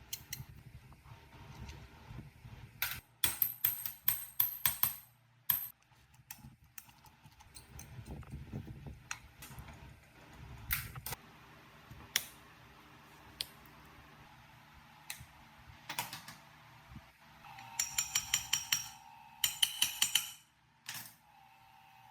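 Quick runs of sharp metallic clicks and taps, some ringing briefly, with single knocks in between: metal tools and parts being worked by hand.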